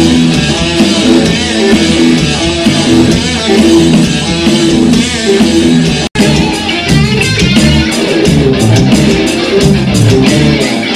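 Rock band playing live: electric guitars, bass guitar and drums in a loud passage without vocals. The sound cuts out for an instant about six seconds in, then the band carries on.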